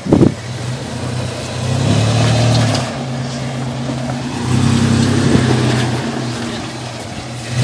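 Toyota 4Runner's engine pulling under load as the truck crawls over boulders, revving up twice for about a second each time and settling back in between. A brief loud burst right at the start.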